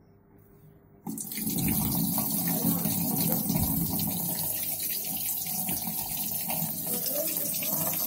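Water pouring from the inlet into the drum of a Sanken Ambrosia AWS 5805N top-load washing machine as it fills, now with a newly fitted water-level sensor. The flow starts suddenly about a second in and then runs steadily.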